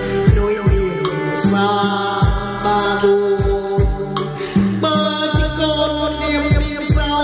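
A song with singing and a drum beat, played back through hi-fi loudspeakers.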